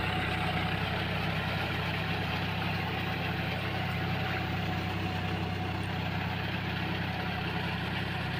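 Tractor's diesel engine running steadily as it works through a flooded paddy field, puddling the mud for rice planting.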